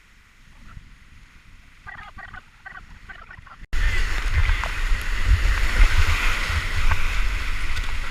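Quiet at first with a few faint short chirping calls, then a loud, steady rush of whitewater cuts in suddenly just under four seconds in, with a heavy low rumble.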